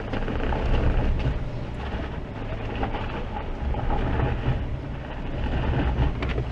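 Suzuki Jimny's engine running under load as the SUV crawls over rough off-road ground, its level rising and easing in a few swells.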